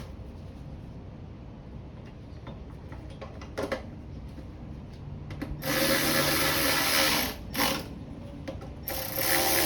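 Aerosol can of WD-40 spraying onto the generator in bursts of hissing: a long burst of about a second and a half just past halfway, a brief puff, and another long burst near the end. Light tool and handling clicks come before the spraying.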